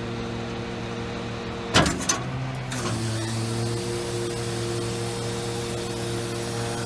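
Hino rollback truck's hydraulic system running steadily while the underbody wheel-lift cylinder moves. A sharp metallic clank comes about two seconds in, with a second lighter one just after, and the running tone shifts slightly.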